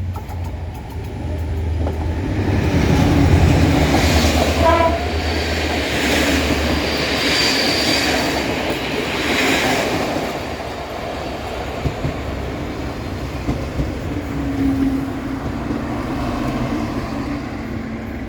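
Train moving past close by: a steady rumble of wheels on the track, with brief high squeals about five and eight seconds in.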